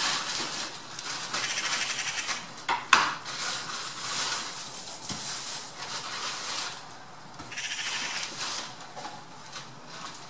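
Eurasian magpies giving harsh chattering rattles in long bouts, with a short pause about seven seconds in, and a sharp click about three seconds in.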